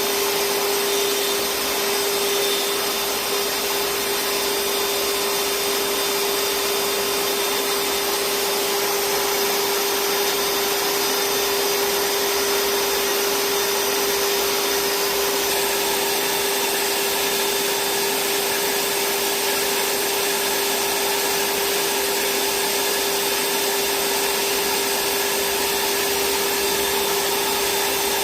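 Vacuum cleaner running steadily at full speed: one constant motor whine over a loud rushing hiss of air.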